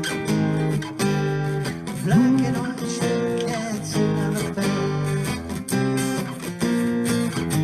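Live acoustic guitar music: strummed chords over a stepping low line, with one bent, sliding note about two seconds in.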